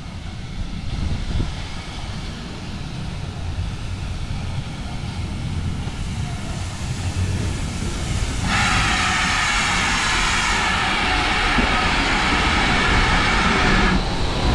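GWR Manor class 4-6-0 steam locomotive 7828 Odney Manor running into a station, its low rumble growing louder as it comes alongside. A steady higher-pitched sound rises over the rumble a little past halfway and stops just before the end.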